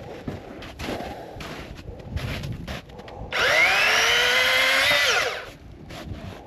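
Master Force 80-volt battery chainsaw: the electric motor whines up to speed about three seconds in, runs steadily for about two seconds, then winds down. Rustling in the brush comes before it.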